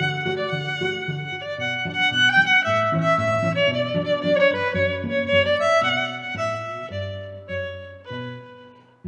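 Background music: a melody over sustained low notes, fading out near the end.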